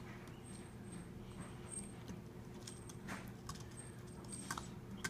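A few faint plastic clicks and taps from Lego figures being handled, over a low steady room hum.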